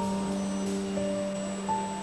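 Background music: slow, held notes over a low sustained note.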